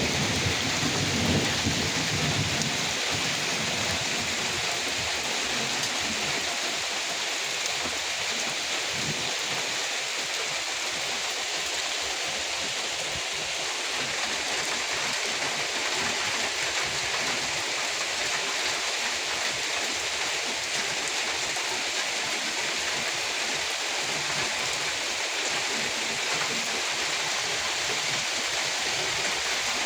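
Steady, dense rainfall, an even hiss of drops, with a low rumble in the first few seconds.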